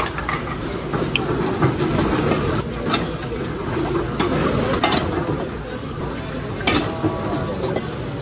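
Busy market food-stall hubbub: a murmur of background chatter with dishes and cutlery clinking now and then.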